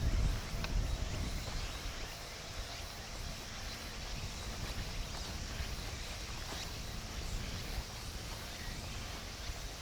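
Wind buffeting the microphone over a faint outdoor background hiss; the rumble is strongest in the first moment, then settles.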